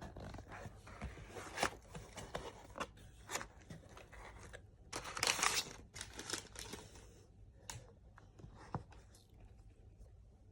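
Packaging of a new iPhone box being torn open and handled: a run of tearing, crinkling and small clicks, with the longest, loudest rip about five seconds in. The sounds die down after about seven seconds, leaving one more click.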